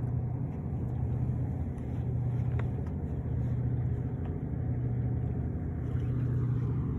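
A boat engine running steadily at idle, a low even hum that swells and eases slightly every second or so.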